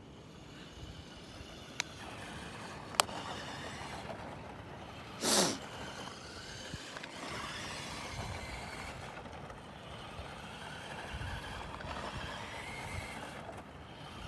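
RC truck driving a little way off, its motor giving a faint, wavering whine. There are two sharp clicks in the first few seconds and a short, loud rushing burst about five seconds in.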